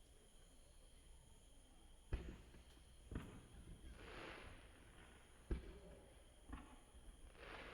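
Distant fireworks bursting: four sharp, faint reports a second or two apart, with two short stretches of softer crackling hiss between them.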